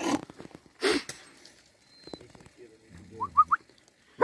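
A large Albanian Molossian dog barking twice, about a second apart. Three quick, high rising chirps follow near the end.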